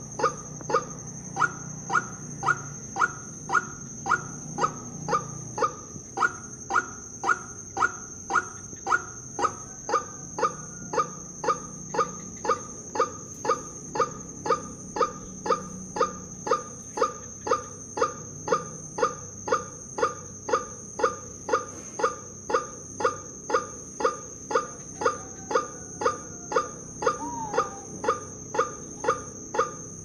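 Homemade tin-can bird lure worked in a steady rhythm, about one and a half nasal honking calls a second, imitating the repeated call of the white-breasted waterhen. A constant thin high-pitched whine runs underneath.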